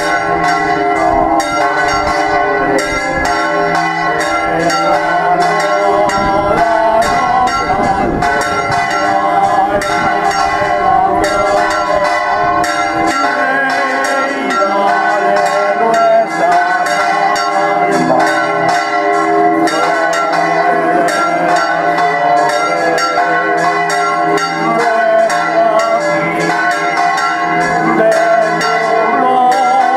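Church bells pealing, struck over and over so that their ringing tones overlap in a continuous clangour.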